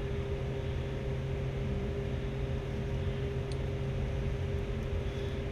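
A steady machine hum: a constant low drone with a few steady tones over an even hiss.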